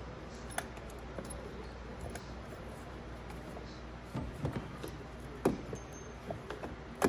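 Scattered clicks and light metallic knocks of hand tools and parts being handled while the steering coupler bolt is fitted under the dashboard, with the loudest knocks about five and a half seconds in and at the end.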